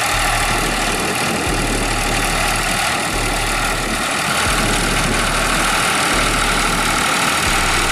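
New Holland 3630 tractor's diesel engine running steadily while pulling a ridging implement through the soil.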